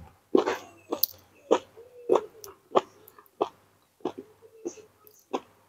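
A person chewing grilled red chicken with wet mouth smacks, about one and a half a second in a steady rhythm.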